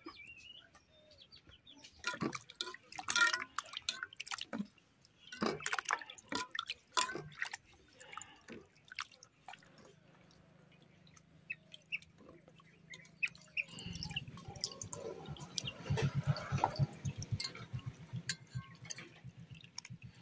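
Raw mutton pieces being washed by hand in a metal bowl of water: splashing, dripping and small knocks of meat and hands against the bowl, busiest in the first half. A low steady hum comes in about two-thirds of the way through.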